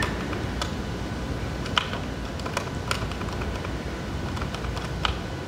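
Pinebook Pro laptop keyboard keys pressed one at a time, a handful of separate clicks at irregular intervals as the selection steps through an on-screen menu.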